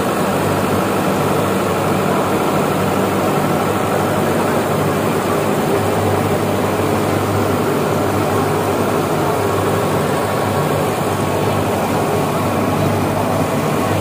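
Nilgiri Mountain Railway rack-and-pinion steam locomotive standing with steam up, giving a steady rushing hiss over a low hum, without exhaust beats.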